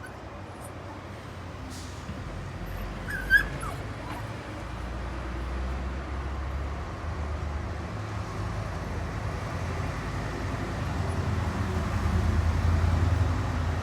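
A one-month-old Pungsan puppy gives one short, high yip about three seconds in, over a low rumble that grows louder toward the end.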